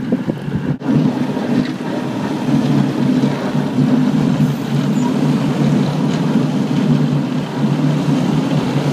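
Snowplow truck running close by, pushing snow with its front blade: a steady, loud low rumble that comes in about a second in.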